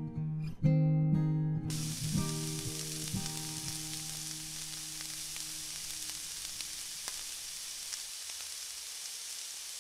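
Plucked guitar-like music for about the first second and a half, its notes ringing out, then hot oil sizzling steadily as a small whole fish deep-fries in a miniature pan, with a few faint clicks.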